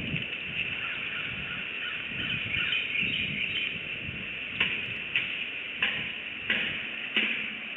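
Bald eagles calling: a series of about five short, sharp calls, roughly one every two-thirds of a second, in the second half.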